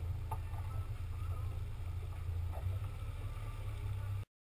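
Low steady rumble aboard a small outboard-powered fishing boat, with a few faint knocks; the sound cuts off abruptly about four seconds in.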